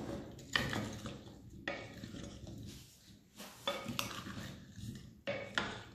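Wooden spoon stirring oiled potato pieces, tomato wedges and black olives in a ceramic bowl: soft wet scraping and sliding of the food, with about four sharp knocks of the spoon against the bowl.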